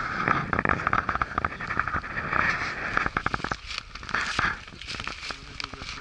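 Dry fallen leaves crackling and rustling as they are trodden and handled, dense for the first three and a half seconds, then quieter.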